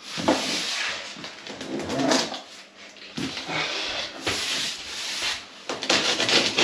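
Cardboard box and packaging rustling and scraping in irregular bursts as the box is opened.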